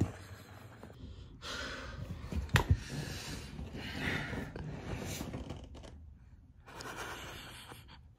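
A man breathing heavily close to the microphone as he moves about in his seat, with rustling and a few sharp knocks, the loudest about two and a half seconds in.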